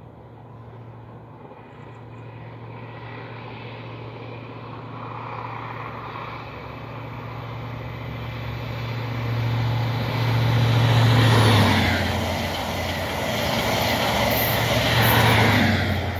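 A pair of Class 43 HST diesel power cars approaching and passing: a steady engine drone grows louder over several seconds, with rising wheel and rail noise. It is loudest as the first power car goes by about eleven seconds in, and again as the second passes about four seconds later.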